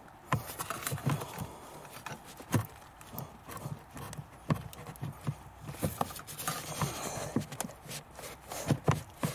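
Irregular knocks, clicks and rustling as a gloved hand twists and pulls at a heater matrix's coolant pipe joint to separate the pipe.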